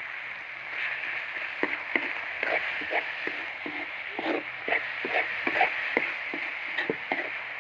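Onions and chorizo sizzling in a wok while a spatula stirs them, scraping and knocking against the pan at an uneven pace from about a second in.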